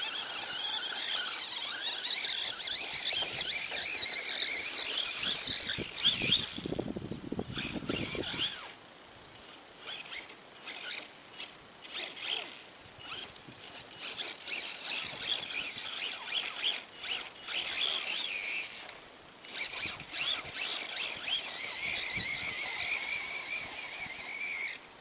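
Axial EXO Terra electric RC buggy climbing a dirt slope: the high-pitched whine of its electric motor and gears, surging and breaking off in bursts with the throttle. There is a short low rumble about seven seconds in, and the sound cuts off suddenly near the end.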